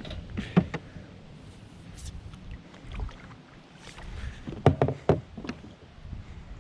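Knocks and clunks on a small jon boat: a couple of light ones shortly after the start and a louder cluster a little before the end, over a low rumble.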